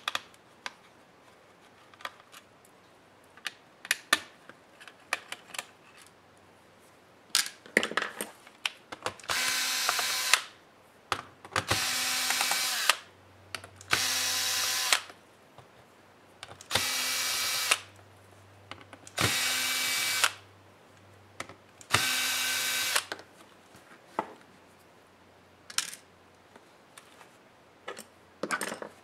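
Cordless electric screwdriver running in six short bursts of about a second each, backing out the laptop's bottom-case screws. Small clicks and taps come in the gaps.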